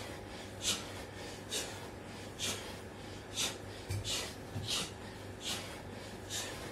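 A man's heavy breathing while exercising: short, hissing breaths about once a second, in rhythm with his push-ups. There is a soft thump about four seconds in.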